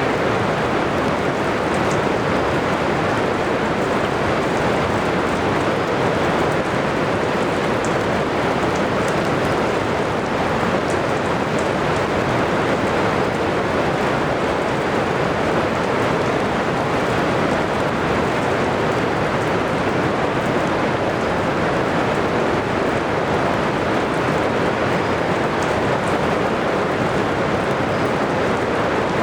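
Steady, heavy rain pouring down in a thunderstorm, an even hiss that does not let up, with a few faint drop ticks.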